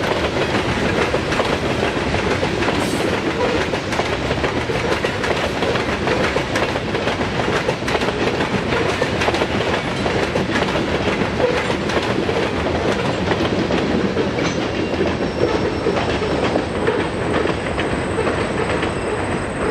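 Covered hopper cars of a long freight grain train rolling past, a steady rumble and rattle with wheels clacking on the rail. The last car passes near the end, and the sound eases off a little.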